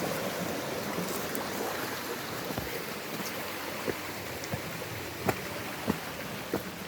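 Running stream water, a steady hiss, with a few sharp clicks from footsteps on the path from about halfway in.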